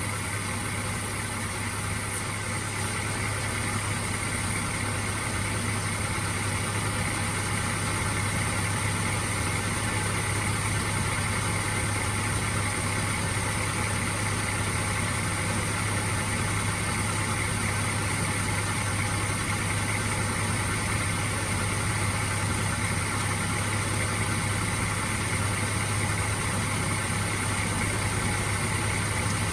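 Engine idling steadily during a manual-transmission flush, with an even hum throughout. A faint high whine cuts off about two seconds in.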